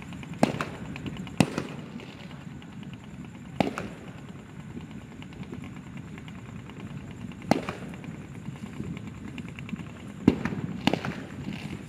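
Aerial fireworks bursting: about six sharp bangs at uneven gaps, over a steady low rumble.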